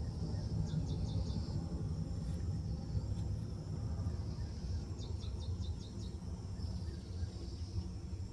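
Outdoor ambience: a steady low rumble under a continuous high drone of crickets or other insects, with two quick series of about five high chirps, one about a second in and another about five seconds in.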